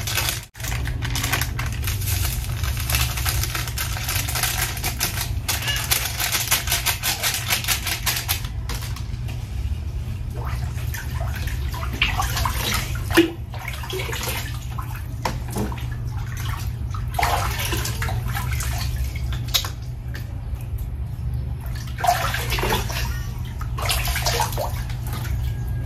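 Hands stirring and splashing in a plastic cooler of water as grape juice powder is mixed in, with sloshing and liquid pouring back as it is scooped up and let fall. A dense, fast crackle fills the first eight seconds or so, and a steady low hum runs underneath.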